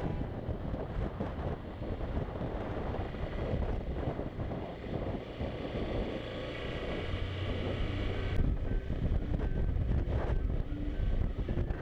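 Honda motorcycle riding along a road, its engine running under wind buffeting the microphone, louder from about eight seconds in.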